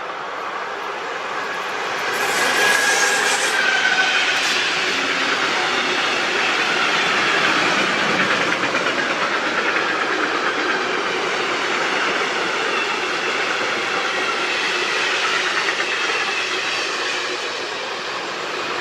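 A train passing on the railway line, its wheels clattering over the rails. The noise swells about two seconds in, holds, and eases slightly near the end.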